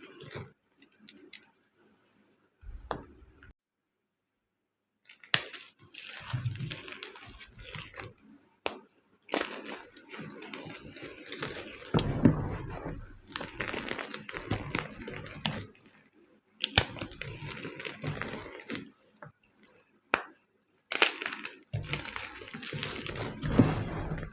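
Homemade gym chalk blocks being crushed and crumbled, crunching and crackling in bursts of several seconds, each one full of sharp snaps, with short pauses between them.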